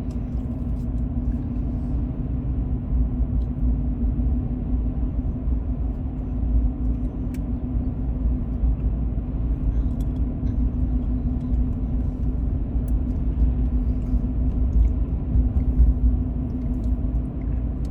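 Steady low rumble of a car's engine and tyres heard from inside the cabin while driving at road speed.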